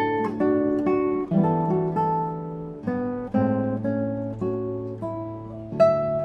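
Background music: acoustic guitar picking notes and chords at an easy pace.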